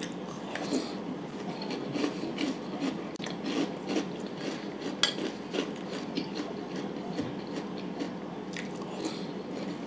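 Close-up chewing of crunchy chocolate Eggo cereal in milk: soft crunching with many small scattered clicks, along with a metal spoon scooping from a ceramic bowl.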